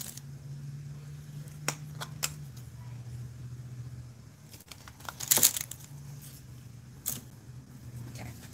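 Small handling noises: a few sharp clicks and taps and a brief rustle about five seconds in, as plastic glitter jars are picked up, shown and set down, over a steady low hum.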